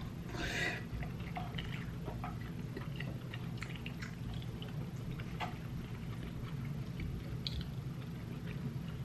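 Close-up mouth sounds of eating ramen noodles: a short slurp about half a second in as the noodles go in, then chewing with small wet clicks. A steady low hum runs underneath.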